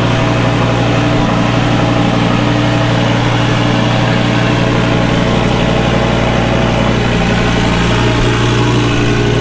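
Audi RS6's twin-turbo V8 idling steadily and loud, its exhaust only a temporary plain pipe. It holds idle on its own, now that the faulty ECUs have been replaced.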